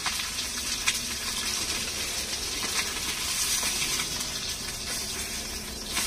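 Whole fish sizzling steadily in oil on a flat iron tawa over a gas burner, with a few clicks and scrapes of a metal spatula on the pan as it is worked under the fish.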